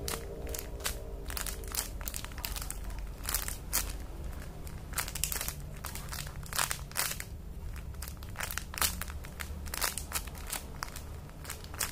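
Irregular crinkling and crackling, with many scattered sharp clicks, as a squishy toy is handled and squeezed close to the microphone, over a low steady hum.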